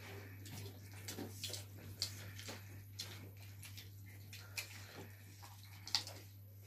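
People eating chicken by hand: scattered wet chewing and lip-smacking clicks, with fingers picking at food on paper plates, over a steady low hum.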